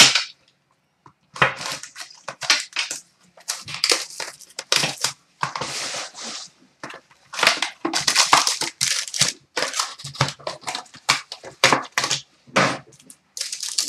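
Upper Deck Artifacts hockey card box being unwrapped and opened by hand: its plastic wrapper tears and crinkles, the cardboard lid is lifted and the foil packs are pulled out, in short irregular bursts of crackling.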